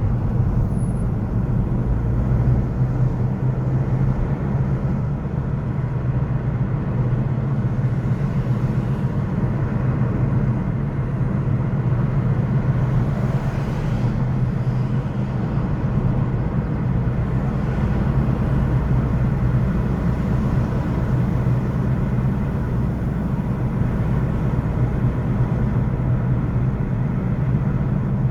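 City road traffic ambience: a steady, low rumble of traffic noise.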